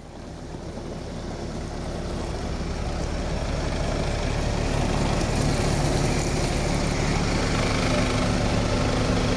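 Engine of a modified off-road 4x4 idling steadily. It grows louder over the first two seconds or so, then holds an even level.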